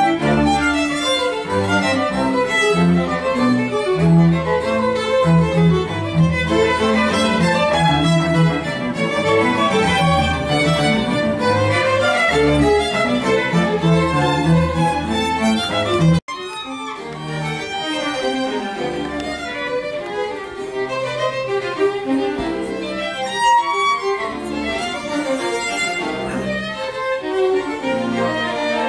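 A string ensemble of violins and cello playing, bows moving in quick notes. The sound drops out for an instant just past halfway, then carries on a little quieter and with less bass.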